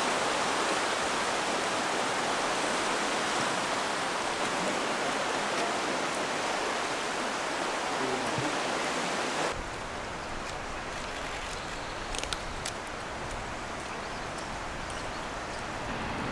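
Rushing of a swollen, fast-flowing muddy floodwater river, a steady, even roar of water that cuts off suddenly about two-thirds of the way through. A quieter steady outdoor background follows, with a few sharp clicks.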